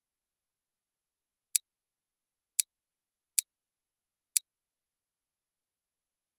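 Four sharp single clicks of a computer mouse button, about a second apart.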